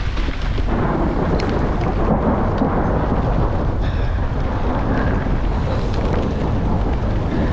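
Steady rumbling noise picked up by a handlebar-mounted GoPro Hero 8 on a mountain bike descending a wet trail in rain and hail: wind on the microphone, tyres on wet ground and the bike's rattle.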